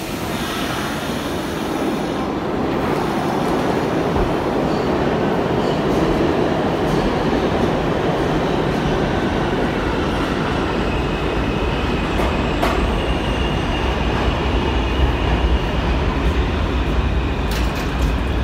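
New York City Subway R46 train pulling out of the station and accelerating away: a dense rumble of wheels on rail and traction motors that builds over the first few seconds. In the second half a deep low rumble grows stronger and a thin high squeal joins it, with a few sharp clicks from the rails.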